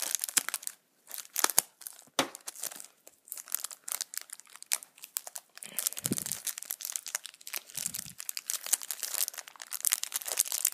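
Packaging crinkling and crackling as small model aircraft parts are unwrapped by hand: a dense run of quick rustles and clicks, with a couple of soft low bumps about six and eight seconds in.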